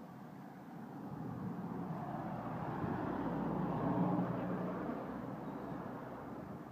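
A car passing by: its noise swells, peaks about four seconds in and then fades away.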